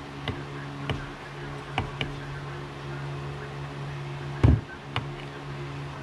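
Metal parts of a cut-open LG refrigerator compressor clicking and knocking as they are handled and shifted on a wooden workbench, with a heavier knock about four and a half seconds in. A steady low hum runs underneath.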